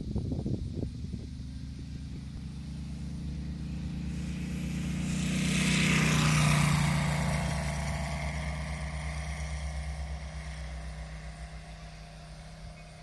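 Engine of a giant-scale radio-controlled Ziroli SBD Dauntless model warbird making a low fly-by. It grows louder to a peak about six seconds in, drops in pitch as it goes past, and fades as the plane climbs away.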